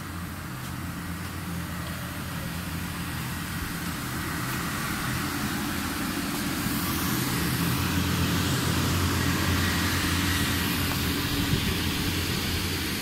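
Electric air blower running steadily to keep an inflatable bouncy castle up: a low motor hum with rushing air, growing louder partway through.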